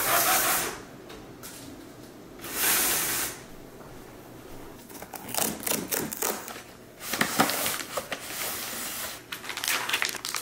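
Cardboard box's perforated tear strip being ripped off, with crackling and rustling of the packaging as the macaron box is opened. It comes in several bursts with quieter gaps between them.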